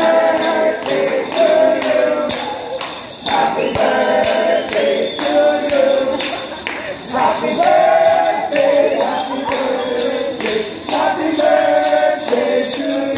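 A group of people singing a birthday song together, with maracas shaken and hands clapping to the beat.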